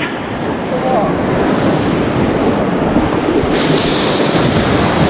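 Breaking surf wave rushing and hissing around a kayak as it is carried toward the beach, with wind buffeting the microphone. The hiss of the whitewater grows brighter about three and a half seconds in.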